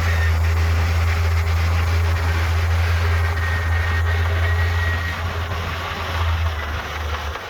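Heavy diesel earthmoving machinery running steadily with a deep engine drone and clatter, and a faint high squeal for a second or two about halfway through. The engine sound eases a little near the end.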